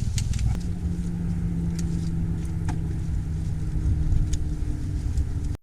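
A vehicle engine running with a steady low rumble and hum, with scattered light clicks over it; the sound cuts off abruptly near the end.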